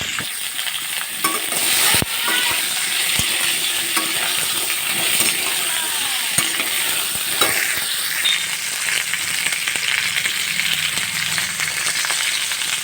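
Potato pieces frying in hot oil in a pan, a steady sizzle, with a few sharp knocks of a spatula against the pan as they are stirred.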